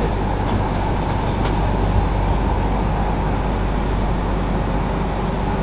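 Steady rumble and low hum of a passenger train carriage heard from inside, with a single light click about two seconds in.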